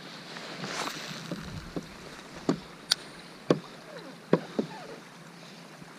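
Water and paddle sounds at a sit-on-top fishing kayak: a soft swish about a second in, then five or six sharp knocks and small watery plops against the hull.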